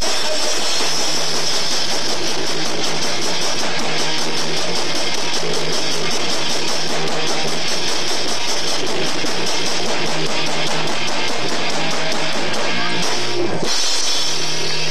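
Live rock band playing loud: electric guitars and drums over a fast, driving beat, with a brief break in the sound near the end. Heard through a VHS camcorder's microphone, so it sounds harsh and overloaded.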